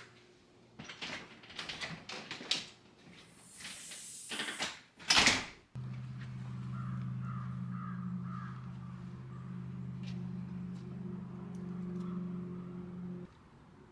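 A few light clicks and knocks, then one loud knock. A steady low electric hum from a running appliance motor follows and cuts off suddenly after about seven seconds.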